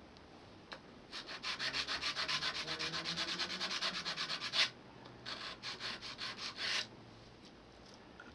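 A glue-coated pen blank's end rubbed back and forth on 180-grit sandpaper held on a wooden block, in quick scratchy strokes about five a second. There are two runs, the second shorter after a brief pause. The sanding takes the hardened glue coat on the end down to the brass tube.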